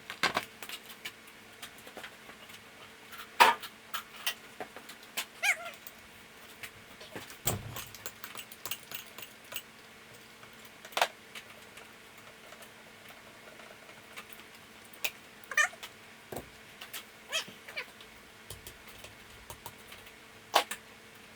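Scattered clinks and knocks of tools and metal engine parts being handled during an engine teardown, the loudest about three and a half seconds in, over a faint steady hum.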